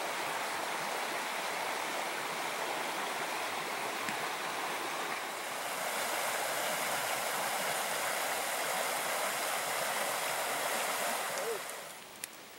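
Shallow rocky creek running: a steady rushing of water over stones, dropping away just before the end.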